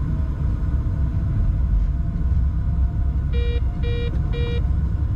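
Steady low rumble in a locomotive cab while the train runs, with three short electronic beeps about half a second apart, a little past halfway.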